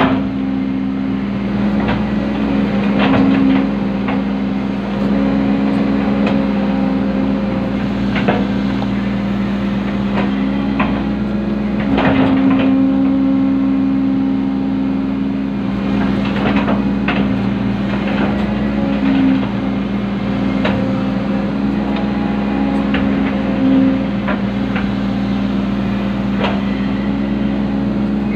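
Komatsu PC120 excavator's diesel engine running steadily, heard from inside the cab, its note swelling and easing in stretches as the hydraulics work the boom and bucket. Occasional short knocks and clunks sound over it.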